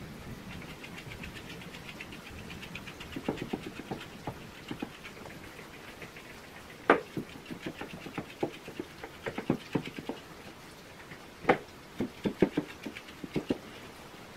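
Hand-stripping a West Highland White Terrier's coat: a quick run of faint crackling ticks as tufts of hair are plucked, followed by scattered sharp clicks and taps, the loudest twice, about seven and eleven seconds in.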